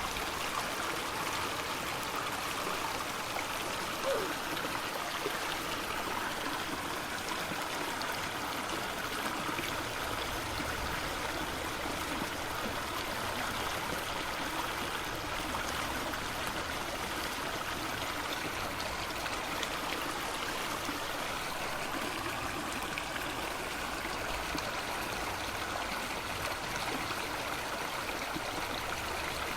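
Steady running, trickling water, an even wash of noise throughout, with one brief faint blip about four seconds in.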